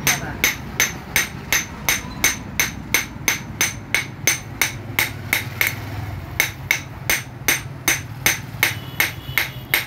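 Blacksmith's hand hammer striking metal on an anvil in a steady rhythm, about three ringing blows a second.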